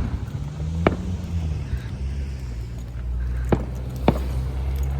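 A car engine running at low speed close by, a steady low hum whose pitch rises and falls briefly about a second in. Three sharp pops cut through it, one about a second in and two close together near the end.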